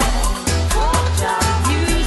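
Upbeat pop-style music with a strong beat, deep bass and a singing or melodic lead.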